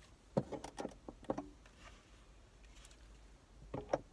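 Black plastic parts of a phone car mount clicking and knocking together as they are handled and fitted, in a few quick clusters about half a second to a second in and again near the end.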